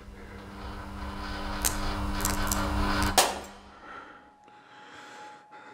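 A low drone with a steady hum swells for about three seconds, with a few sharp clicks, and ends in a sudden hit that cuts it off. It is followed by a quiet stretch with a faint, thin steady tone.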